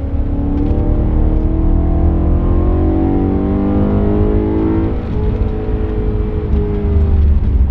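BMW M3 E92's 4.0-litre V8 heard from inside the cabin under hard acceleration, its pitch rising for about five seconds, then dropping sharply and running on at steadier revs, over a heavy low road and wind rumble.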